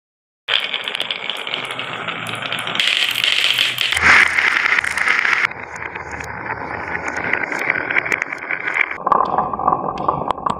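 Glass marbles rolling and clattering along a wavy groove in a wooden board, a continuous rattle of clicks against the wood and one another. The rattle changes abruptly a few times, about four, five and a half and nine seconds in.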